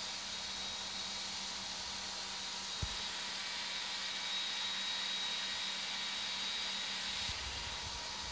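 Steady background hiss with a low electrical hum and a faint high whine, room tone with no clear single source. There is one sharp click about three seconds in.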